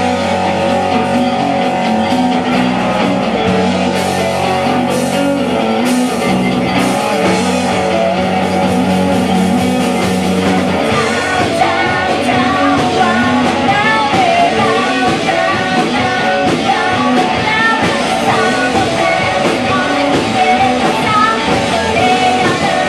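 Rock band playing, with electric guitar, drums and a singing voice. Held low notes underpin the first half, then a melody weaves higher up from about halfway.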